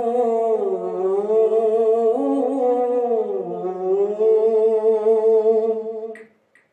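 A man chanting an unaccompanied Islamic ibtihal (devotional supplication), drawing out one long ornamented vowel on "tafu". The pitch dips twice and then holds steady before he breaks off about six seconds in.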